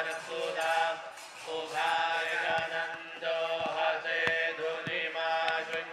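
A group of voices chanting Vedic mantras in held, drawn-out notes, with a few short sharp taps behind the chant.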